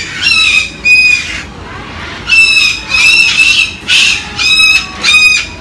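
Umbrella cockatoo screeching: about seven loud, short, shrill calls in quick succession, with a short break about two seconds in.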